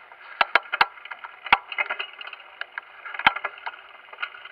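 Electric dirt bike rattling and knocking as it rides over broken-up pavement and a curb: a quick run of sharp knocks about half a second in, then single loud ones near one and a half and three seconds, over a steady hum.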